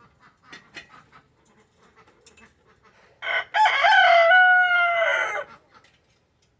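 A rooster crows once, about three seconds in: a short opening note, then a long drawn-out call lasting about two seconds. Faint light ticks come before it.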